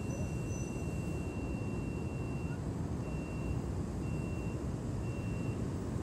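Outdoor background: a steady low rumble, with a thin high-pitched tone that sounds continuously at first, then beeps about once a second from about two and a half seconds in.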